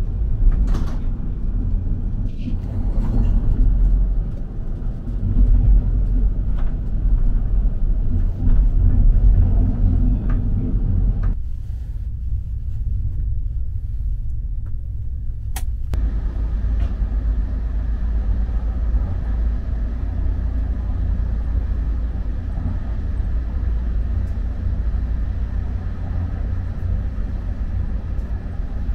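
Low, steady rumble of a sleeper train running on the rails, heard from inside the carriage, with scattered knocks and clicks in the first part. About eleven seconds in the rumble thins and quietens, there is one sharp click near fifteen seconds, and then it returns steadier with more hiss.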